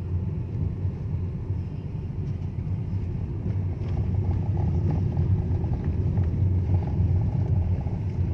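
Car cabin noise while driving slowly: a steady low rumble of engine and tyres, a little louder from about halfway through.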